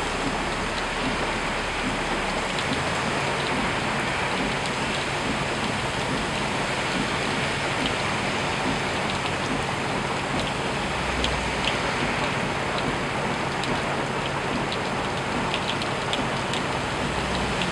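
Steady rain falling onto flooded ground and standing water, with scattered individual drops ticking close by.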